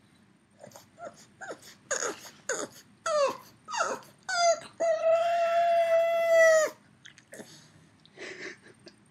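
A dog making a run of short yelps that drop in pitch, then holding one long, steady howl for about two seconds.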